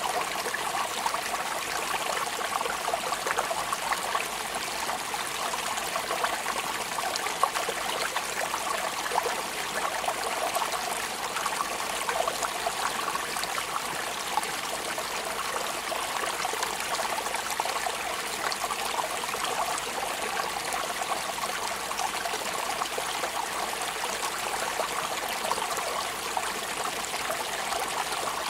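Steady rain: an even, constant hiss of falling water sprinkled with many small drop ticks.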